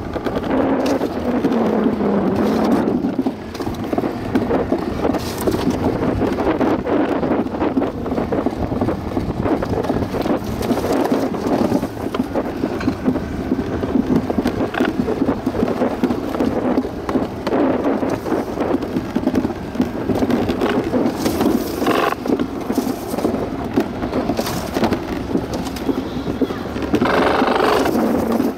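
Alpine-slide sled running down a fiberglass chute: a steady rough rumble and rattle from the sled riding the track.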